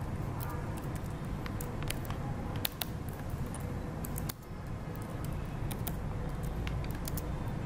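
Computer keyboard typing: irregular, quick keystroke clicks over a steady low hum.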